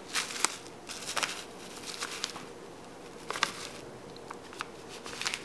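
Scattered light crinkles and taps from a bag of milled flaxseed being handled and emptied into a blender jar.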